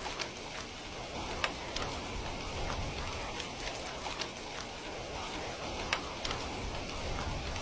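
Heavy rain falling steadily, with scattered sharper drop ticks among the hiss.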